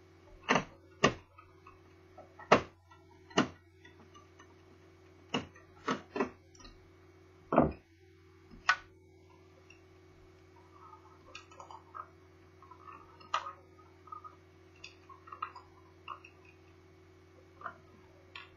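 Plastic and metal parts of a Toshiba Satellite L650D laptop being handled during disassembly: a string of sharp, separate clicks and knocks, then softer rustling and light ticks in the second half, over a faint steady hum.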